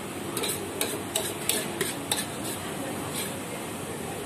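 A metal ladle knocks and scrapes against a steel wok as noodles are stir-fried, with a run of sharp clanks through the first three seconds or so. A steady sizzle of frying runs underneath.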